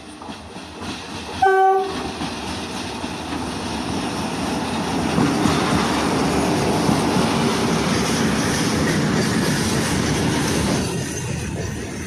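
Electric locomotive hauling a train of tank wagons: one short horn blast about a second and a half in. Then the rumble and clatter of the wheels on the rails grows louder as the train passes, easing off near the end.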